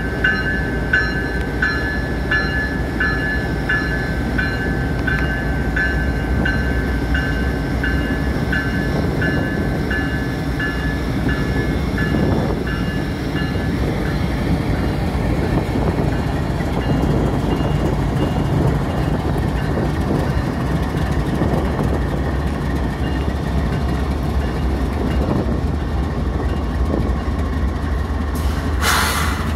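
Freight-train diesel locomotives running and rolling past as the train accelerates, a steady engine and wheel rumble. Over it a bell dings about twice a second, fading out about halfway through.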